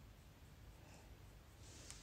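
Near silence: room tone with a low hum, a couple of faint soft rustles, and a small click near the end.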